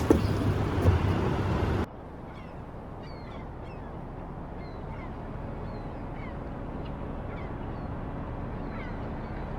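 A loud rushing noise cuts off abruptly about two seconds in. After it comes a quieter steady background with many short, high bird calls, each sliding down in pitch, repeating throughout.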